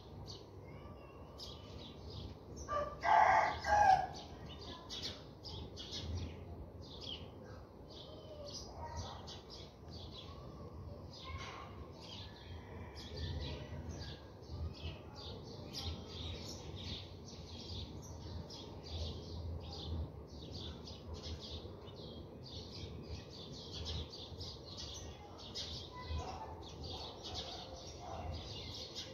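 Small birds chirping rapidly and continuously in a busy chorus. About three seconds in, a much louder, lower bird call sounds twice in quick succession.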